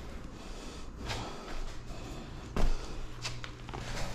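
Cloth rubbing in strokes over freshly grouted tiles, buffing off the dried grout haze, with a single thump about two and a half seconds in and a few light clicks just after.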